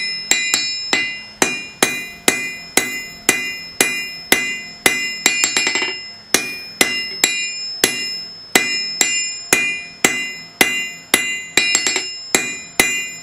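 Blacksmith's hammer striking steel on an anvil at a steady pace, about two ringing blows a second, with a quick run of light taps twice along the way. The blows are flattening the end of a 1/2-inch square bar into a scarf for a forge weld.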